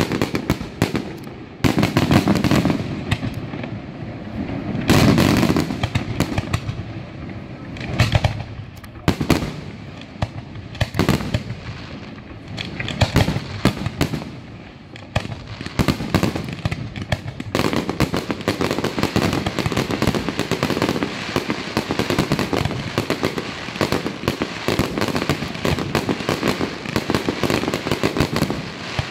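Aerial fireworks shells bursting one after another with deep booms, then, from a little past halfway, many crackling bursts going off at once in a dense, continuous crackle.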